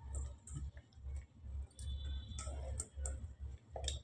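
Scattered soft clicks and light knocks of boiled jackfruit pieces being picked from a steel bowl and set down on a steel plate of spiced onions, with dull low thumps of handling in between.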